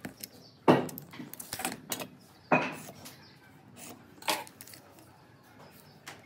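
Wooden timber knocking against a wooden workbench as it is handled: three sharp knocks spaced under two seconds apart, the middle one loudest, with lighter taps and clicks between.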